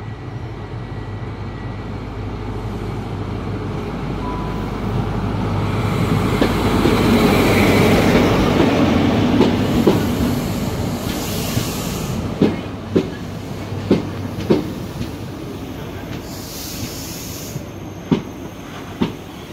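A CrossCountry HST arrives and slows alongside the platform. The diesel power car's engine hum grows loudest as it passes, then the coach wheels give a series of sharp clicks over the rail joints, with short bursts of hiss.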